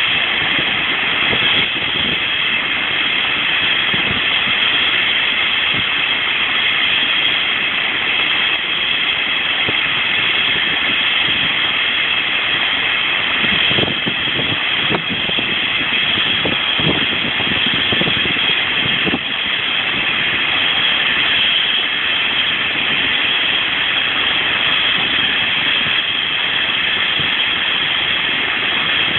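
Eurocopter EC135 helicopter running on the ground with its main rotor turning, its turbines giving a steady high whine over the rotor's rumble, before lift-off.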